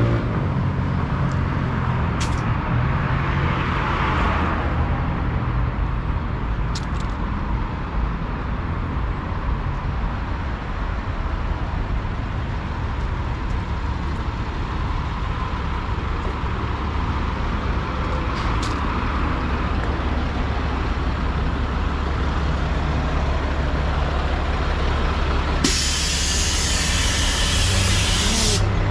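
Street traffic with heavy vehicle engines running. Near the end a bus or truck air brake lets out a loud hiss for about three seconds, then cuts off suddenly.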